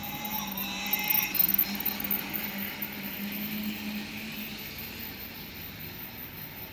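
RailKing model steam train running on its track: a steady mechanical hum and clatter, with a brief louder burst of clicking about a second in.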